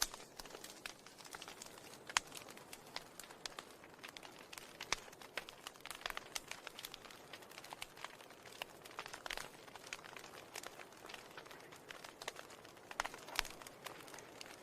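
Faint, irregular crackling: a continual scatter of small clicks, with a sharper click about two seconds in and a denser cluster near the end.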